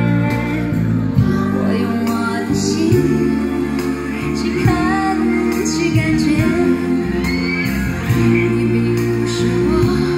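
A Chinese pop song with singing, played through a pair of JVC SK-41 bookshelf speakers driven by a Pioneer SA-510 stereo amplifier.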